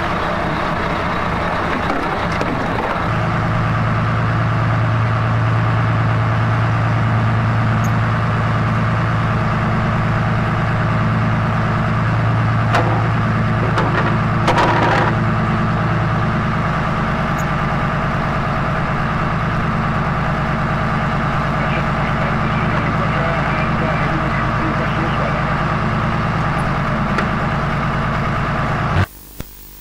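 RNLI inshore lifeboat's engine running steadily under way, its note stepping up about three seconds in. It cuts off abruptly just before the end.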